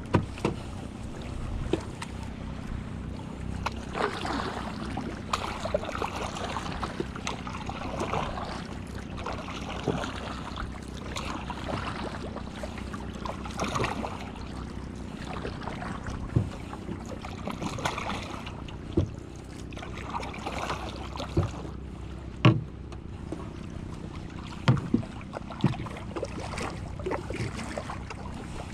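Wooden paddle strokes swishing and splashing through the water about every two seconds as a small wooden outrigger canoe is paddled along, with a few sharp knocks in the second half.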